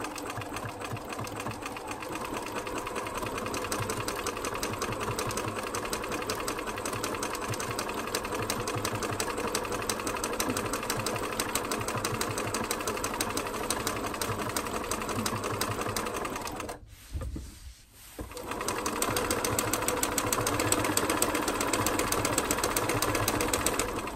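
Riccar RCM 1230 (Bernina 1230) electronic sewing machine running at steady speed, stitching through denim with a fast, even needle ticking. It stops for about a second and a half around two-thirds of the way in, then runs again a little louder until near the end.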